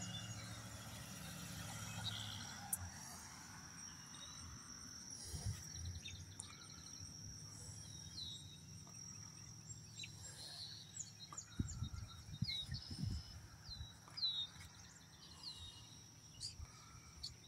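Quiet outdoor ambience: a steady high insect trill with short, falling bird chirps repeating over it. A few low thumps come in the second half.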